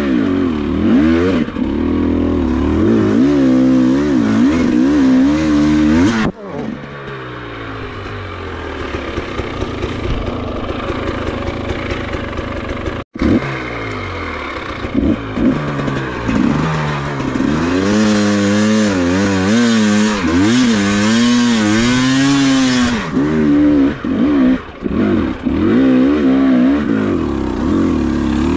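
Enduro dirt bike engine being ridden off-road, its revs rising and falling over and over as the throttle is worked. About a quarter of the way through it settles into a quieter, steadier stretch, then breaks off abruptly and the up-and-down revving comes back.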